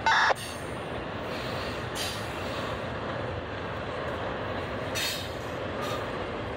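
A Norfolk Southern double-stack container train rolling past, a steady rumble and hiss of wheels on rail. A brief, loud, high wheel squeal comes right at the start.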